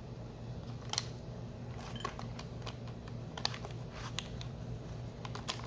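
Scattered light metallic clicks as a steel engine timing chain and its parts are handled and fed around the timing gears, about seven over a few seconds, over a steady low hum.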